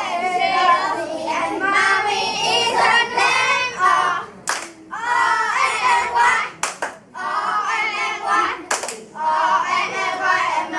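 A group of children singing together in phrases, with a few sharp hand claps in the gaps around the middle.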